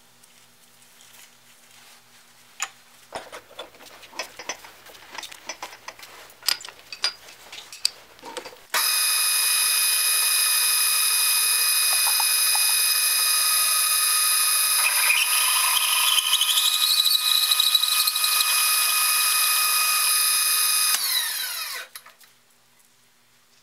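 Drill press spindle starting with a steady high whine and driving a homemade 15 mm reamer, made from reinforcing-bar steel, through a pre-drilled hole in a steel block. A wavering, rising squeal joins in as the reamer cuts. The spindle then spins down and stops. Before the start come light clicks and metal clinks as the reamer is fitted in the collet.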